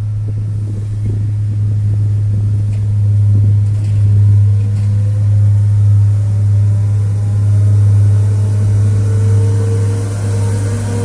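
2007 Atlas-Terex TW160 wheeled excavator's diesel engine running steadily with a deep hum. A faint whine rises in pitch about halfway through.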